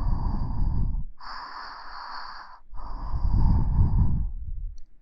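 Slow, close-up ASMR breathing into the microphone: three long breaths in a row, the first and last blowing air onto the mic with a low rumble.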